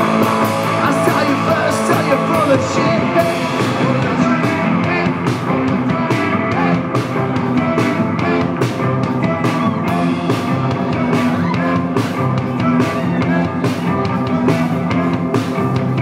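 Live rock band playing: electric guitars over a steady drum beat.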